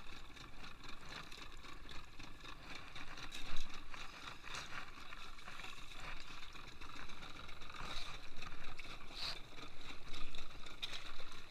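Ambient sound aboard a small fishing boat at sea: a steady wash of noise with a few short knocks, the loudest about three and a half seconds in.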